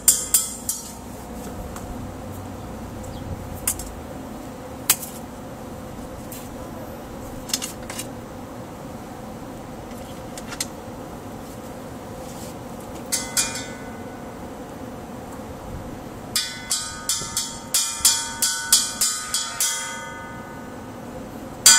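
Small rocks knocking against the steel collar of a propane tank as they are handled: scattered single clicks, then, starting about three-quarters of the way in, a quick run of ringing clinks, about three a second.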